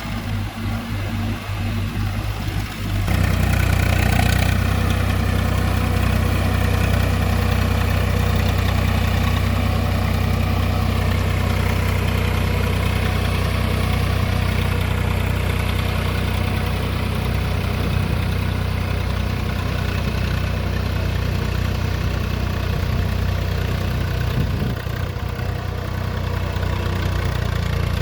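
Tractor's diesel engine running while it pulls a rotavator through soil. It is uneven for the first few seconds, then about three seconds in it grows louder and settles into a steady, even drone.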